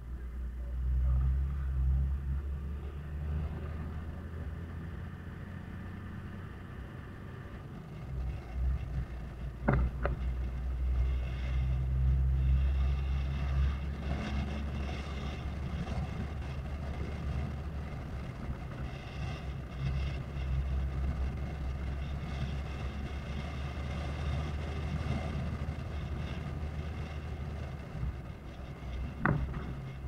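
Toyota Land Cruiser HZJ78 troopy driving on a rough dirt road: a steady low drone of its 1HZ diesel engine with road and body noise, broken by two sharp knocks, about ten seconds in and near the end.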